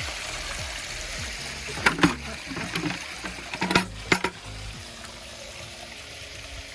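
Water running out of an animals' water tub as it is drained, a steady splashing hiss that slowly tapers off. Two clusters of sharp knocks or clatters come about two seconds in and again around four seconds.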